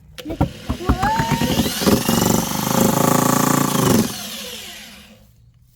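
Spin-art machine spinning a painted canvas: it speeds up from a run of quickening clicks into a whir rising in pitch, runs steadily for about two seconds, then stops near the end and winds down with falling pitch.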